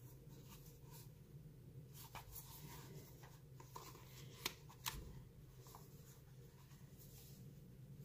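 Near silence, with faint rustles and a few soft taps as a leather traveler's notebook cover and its elastic closure cord are handled.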